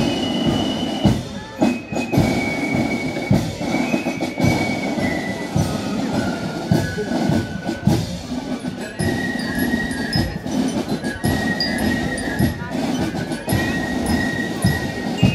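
Marching band music in a street parade: a melody of long held high notes that step from pitch to pitch, over irregular sharp knocks and the chatter of voices.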